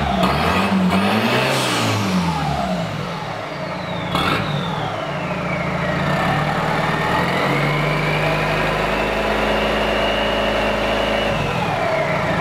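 Toyota Hilux Surf's four-cylinder turbo-diesel revved through a custom 3-inch turbo-back exhaust with the cutout valve open. It gives a couple of quick blips, then holds higher revs for a few seconds before dropping back near the end, with the turbocharger's whistle rising and falling above the engine note.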